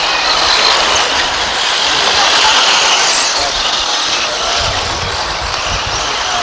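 Electric radio-controlled off-road buggies racing: a high, shifting whine from their motors and gears over a steady hiss.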